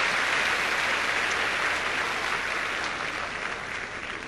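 Arena crowd applauding, the clapping slowly dying down.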